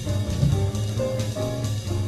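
Jazz background music.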